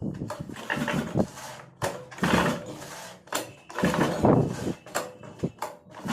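Recoil pull-starter of a 63 cc single-cylinder two-stroke mini tiller pulled about three times, each pull a rough scraping rattle of rope and mechanism; the engine does not catch. The starter is sticking and jamming as it is pulled, part of the machine's starting problem.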